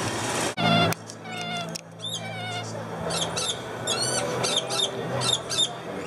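Rainbow lorikeets calling: many short, wavering, high-pitched screeches and chatters in quick succession over a steady low hum. A brief loud rustling noise comes just before the calls start, about a second in.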